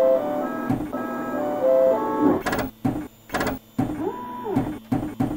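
Outro sound sting: a short melody of steady electronic-sounding notes, then several harsh mechanical bursts and a tone that glides up, holds and slides back down, with a few more short bursts near the end.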